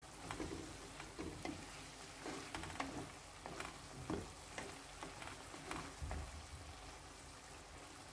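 Chopped tomatoes, green peppers and onion sizzling in oil in a nonstick pot, while a wooden spatula stirs and scrapes through them in strokes about twice a second.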